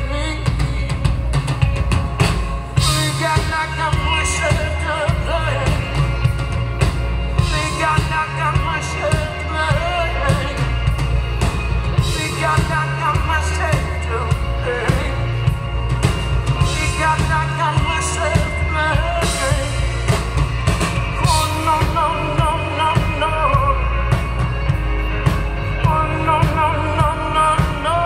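Live band playing a rock song: a singer over a drum kit, loud and continuous.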